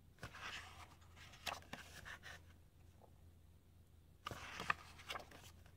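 Glossy pages of a gallery book being turned by hand: soft paper rustling and sliding in two spells, the second about four seconds in with a sharp flick of the page.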